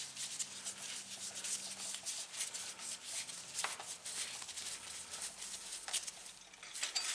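Faint scraping and a few light, sharp clicks of a bicycle crank arm, its bolt and tools being handled during crank reassembly.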